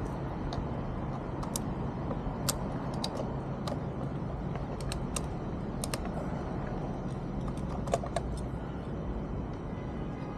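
Scattered light, irregular clicks of a hand driver and Torx bit being worked at a small screw, over a steady low background hum.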